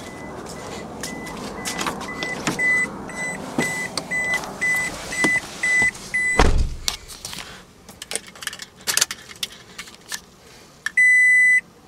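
A 2005 Scion tC's interior warning chime beeping about twice a second, with clicks and handling noise around it; a heavy thump comes about six and a half seconds in. Near the end the chime comes back louder, with longer beeps a little under a second apart.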